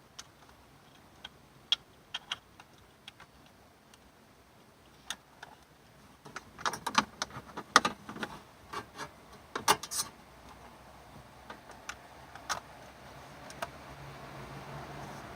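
Scattered clicks and knocks of hands fitting a car stereo's wiring harness plugs and plastic parts, busiest in the middle. A low hum starts to swell near the end.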